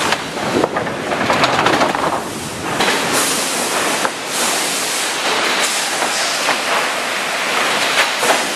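Sawmill lumber-handling line running: the chain conveyors of a tilt hoist's lugged decline give a steady rattling clatter, with now and then the knock of boards shifting on the chains.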